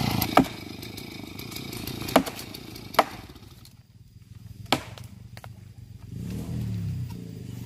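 Stihl MS070 two-stroke chainsaw dropping to idle, then idling with a brief rev near the end. Over it come about five sharp knocks, spaced one to two seconds apart.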